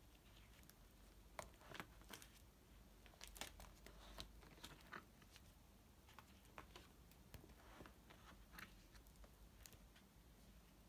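Faint crinkling and crackling of clear plastic sleeve pages in a banknote album as a page is lifted and turned by hand, a scattering of short crackles.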